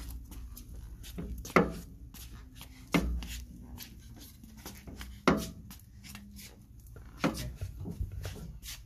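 Adult tricycle's chain drive and axle bearings turning, with a sharp click or knock every one and a half to two seconds, five in all. This is the drivetrain noise being checked after the bearings were greased.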